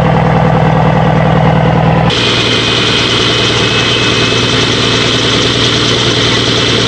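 Truck engine idling steadily close by. About two seconds in the sound changes abruptly, and a steady high whine runs over the idle from then on.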